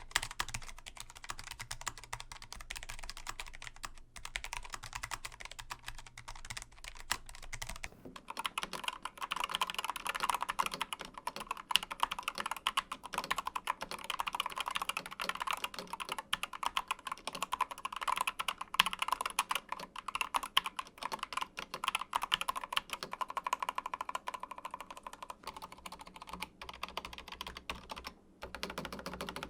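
Rapid typing on mechanical keyboard switches, dense clicking keystrokes. About 8 seconds in, the sound changes to a different switch with brighter, louder keystrokes, and a low hum under the first stretch stops.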